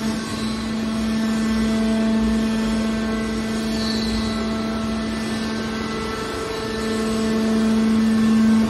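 Hydraulic scrap metal baler's pump unit running with a steady hum, swelling over the last couple of seconds and then dropping off sharply.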